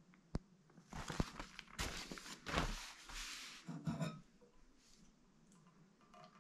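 Newspaper being handled: a sharp click, then about three seconds of paper rustling and crinkling with a few light knocks, dying away after about four seconds.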